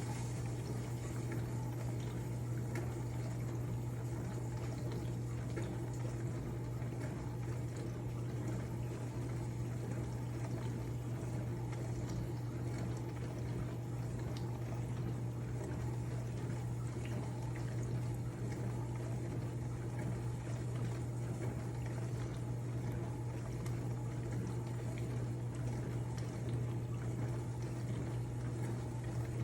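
Maytag appliance running steadily, a constant low hum under an even rushing, water-like noise.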